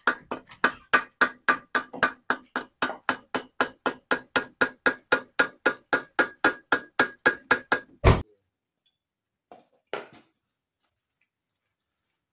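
Hand hammer striking a steel driver set in a cylinder bore of an Isuzu Panther engine block, pressing a cylinder liner. The blows come fast and even, about four a second, each ringing like metal. They stop about eight seconds in with one heavier blow, and a couple of faint knocks follow.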